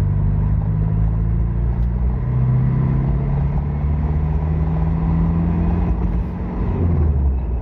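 Car engine and road noise heard from inside the cabin while driving. The engine note rises gradually and falls back near the end.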